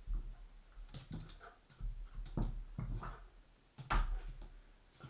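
A dog's claws and paws scrabbling, clicking and thudding on a laminate floor as it pounces and lunges, in irregular bursts with the loudest knock about four seconds in.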